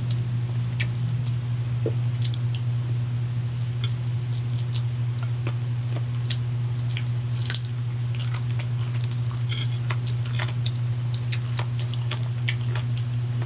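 A person chewing a mouthful of roast chicken and rice, with many short scattered clicks, over a steady low hum.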